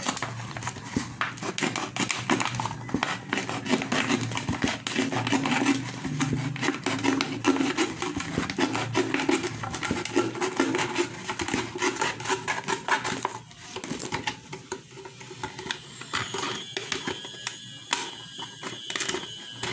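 Thin plastic soft-drink bottle crackling and clicking as it is handled and pressed, then snipped with scissors near the end.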